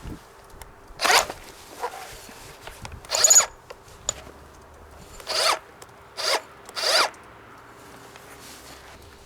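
Makita HR400DPG2 cordless rotary hammer run in five short rasping bursts, with a faint sixth, as the bit works into the ground.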